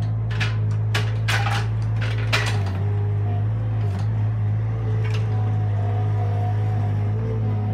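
Avant compact loader's engine running steadily, with several sharp metallic clanks from the loader and its log grapple in the first few seconds.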